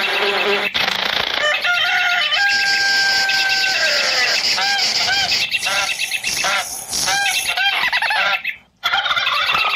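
Many birds calling and chirping over one another, with a long held whistled note about two seconds in, followed by a run of short repeated chirps. The sound cuts out for a moment near the end.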